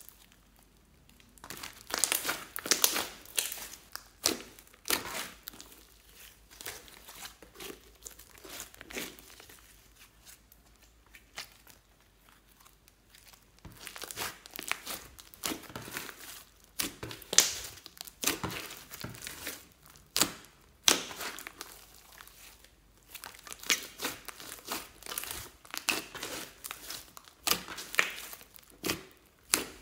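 Hands kneading, squeezing and stretching fluffy slime, which crackles and pops wetly in irregular bursts of clicks. It goes quieter for several seconds about a third of the way in, then picks up again.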